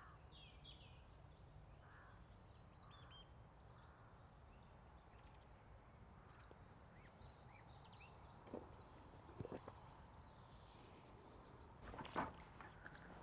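Faint riverside ambience: small birds chirping and trilling over a low steady rumble. A few soft knocks sound about two-thirds of the way through and near the end.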